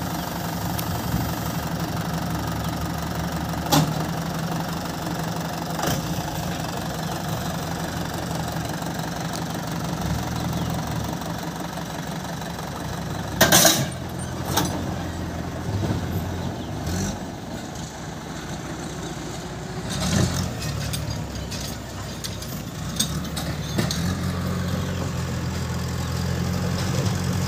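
Mahindra 575 DI tractor's diesel engine running steadily, with a few sharp clanks over it, the loudest about halfway through.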